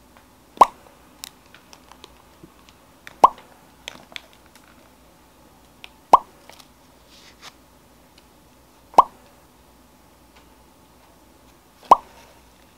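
A cartoon-style 'plop' pop sound effect, repeated five times at even spacing of about three seconds. Faint clicks and crinkles of plastic grocery packaging being handled sound between the pops.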